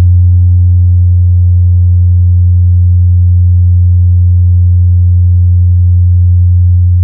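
Loud, steady low electrical hum with a buzzy series of overtones coming from a boAt soundbar with a Boya BY-M1 lavalier microphone plugged into its input and the volume turned up.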